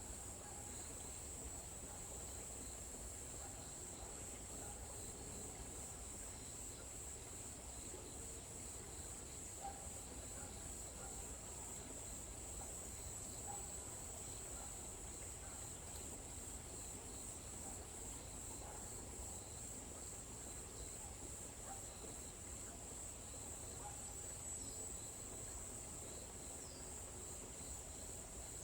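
Insects, crickets by the sound of it, chirring in one continuous high-pitched trill, with a few faint short chirps scattered underneath.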